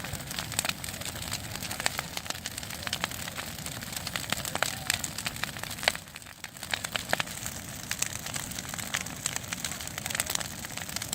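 Large wood bonfire burning, crackling with many sharp, irregular pops over a steady rushing hiss.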